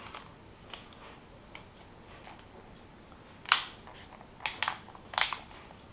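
Plastic back cover of a Samsung Galaxy Note N7000 phone being pressed on, its clips snapping into place: a few light clicks, then three sharp snaps in the second half.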